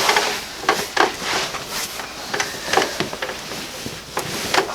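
Irregular sharp clicks and pops, about seven spread over a few seconds, from a chiropractic low-back adjustment: the joints of the lower back cracking as they release, over quiet handling and table noise.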